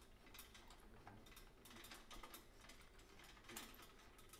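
Faint, irregular metallic clicks and light scraping as the metal 4 K shield can of a magnetic (ADR) refrigerator is slid down off its wired inner stages.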